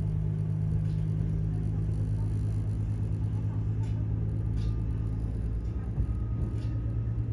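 Diesel railcar running along the line, a steady low engine drone heard inside the passenger cabin, with a few faint clicks.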